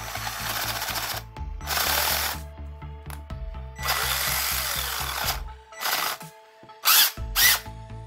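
Aimsak AD414R 14.4 V cordless drill's motor whirring in several short runs of about a second each as the trigger is pulled and released, with two brief louder bursts near the end. The motor spins but the drive does not reach the chuck, a fault in the gear section such as a pinion gear slipping on the motor shaft.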